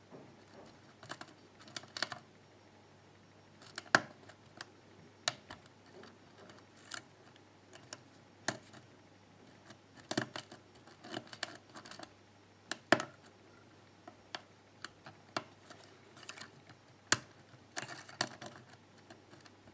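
Steel hook pick tapping and clicking against the pins inside a tensioned pin-tumbler lock cylinder: irregular small clicks, a few sharper ones, as pins are lifted and set.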